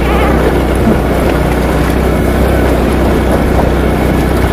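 Single-cylinder engine of a Honda automatic scooter running steadily while the scooter is ridden over a rough dirt track, with wind noise on the microphone.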